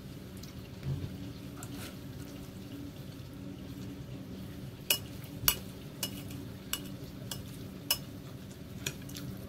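A fork clinking against a bowl of instant noodles while stirring and lifting them. There are about seven sharp clicks, roughly every half second or so, starting about halfway through, over a steady low hum.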